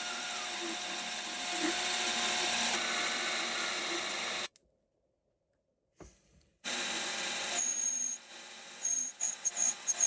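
A power tool's motor running steadily with a hiss of cutting. It stops about four and a half seconds in and starts again about two seconds later, with short high-pitched squeals coming and going near the end.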